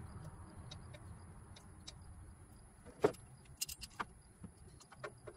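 Light metal clinks and clicks from a ratchet wrench being set onto a newly threaded exhaust gas pressure sensor, with one sharper knock of metal on metal about three seconds in and a run of small clicks near the end.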